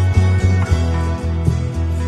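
Background music with a pulsing bass line under held higher notes.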